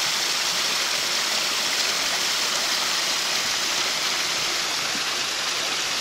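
Small spring-fed waterfall: cold spring water pouring out of the bank and splashing onto the stones below, a steady rush.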